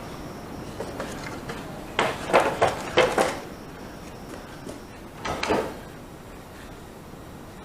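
Pieces of old wooden boat-interior joinery being handled and set down, knocking against each other: a quick run of wooden knocks about two seconds in and another short clatter about five seconds in.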